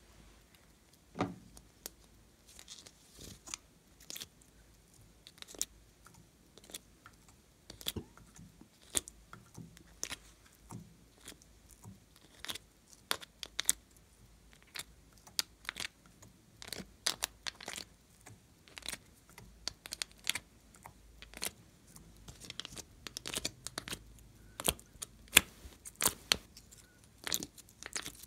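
Cubes of slime being pushed out of an ice-cube tray by hand: irregular small sticky clicks, crackles and squishes, coming thicker and louder near the end.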